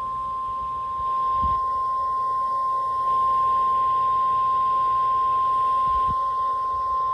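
NOAA Weather Radio warning alarm tone: one steady, unbroken beep near 1 kHz (the 1050 Hz alert tone). It signals that a warning message, here a severe thunderstorm warning, is about to follow.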